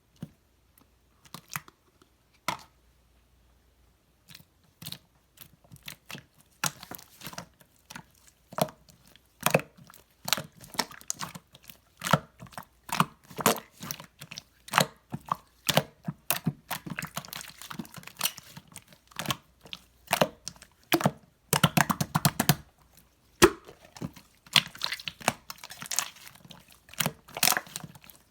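Slime being squeezed and pressed by hand, giving short wet clicks and pops. They come sparsely at first, then in a near-constant crackle from about six seconds in.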